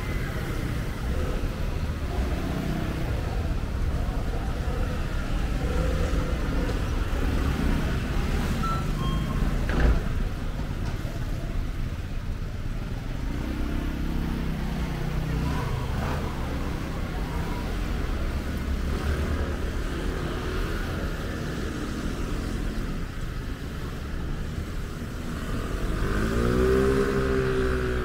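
Street traffic: a steady rumble of passing motor vehicles, with an engine passing close by near the end.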